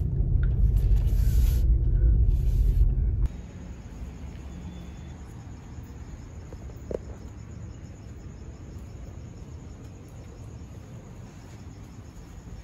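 A loud low rumble inside a car that cuts off suddenly after about three seconds. Then a faint steady hiss with a thin, pulsing high chirring of crickets, and a single small click.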